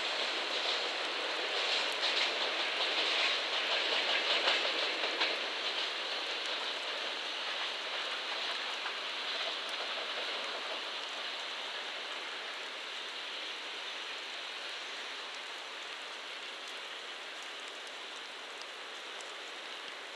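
JR Freight EF210 electric locomotive, the rear banker of a container freight train, rolling away over the rails. The wheel-on-rail noise with a few faint clicks is loudest a few seconds in, then fades into a steady rain hiss.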